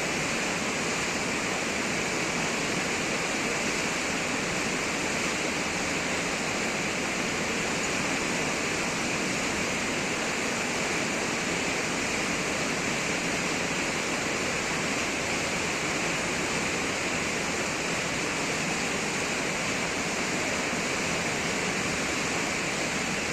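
Düden Waterfall: water falling and rushing in a constant, even noise that never breaks or changes.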